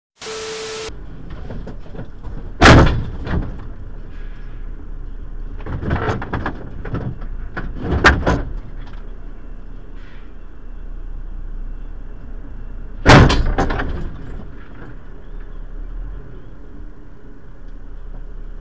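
Steady road noise from a car travelling on a motorway right beside an articulated lorry, broken by several sharp bangs. The two loudest come about three seconds in and about thirteen seconds in, with smaller knocks between them.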